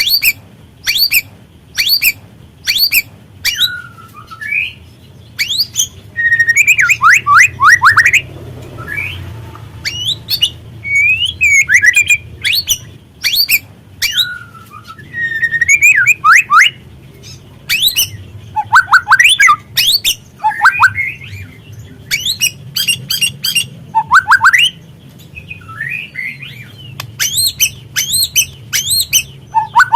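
Juvenile white-rumped shama calling: repeated sharp clicking ticks mixed with quick runs of rising and falling whistled notes and harsh squawky calls.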